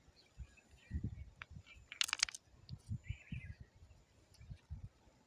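Low, irregular bumping of a hand and wind on a phone's microphone, with a short rattle of sharp clicks about two seconds in.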